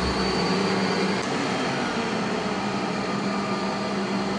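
Electrolux vacuum cleaner, casing opened and circuit board exposed, running steadily: a motor and airflow noise with a low hum and a high whine that fades about a second in.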